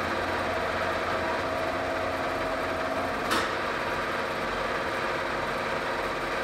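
Cincinnati Cinova 80 vertical milling machine running under power with a steady mechanical hum and whine of its gearing. A higher whine in it stops with one sharp click about three seconds in.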